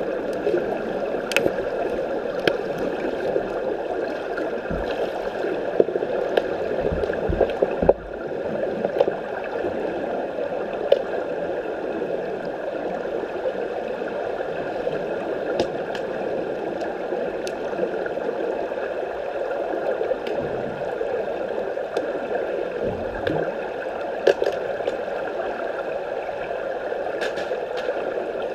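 Swimming pool heard underwater through a submerged camera: a steady rushing, gurgling water noise. Scattered sharp clicks and knocks come from the underwater hockey play.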